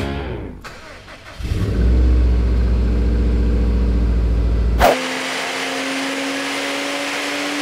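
A 2008 Subaru Impreza WRX STi's turbocharged flat-four engine starts about a second and a half in and runs with a steady low hum. After an abrupt cut about five seconds in, a steadier, higher engine note follows, its pitch rising slowly.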